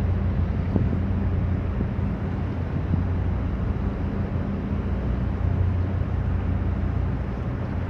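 Large ship's engine giving a steady low drone under a broad rush of wind on the microphone.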